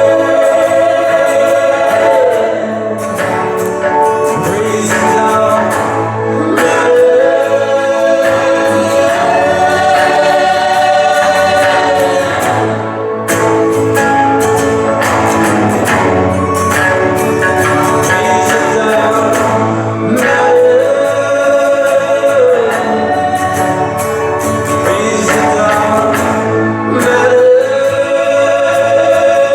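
Live band music in an instrumental stretch of a song without lyrics: a held lead melody that slides up between notes several times, over chords and a steady low bass.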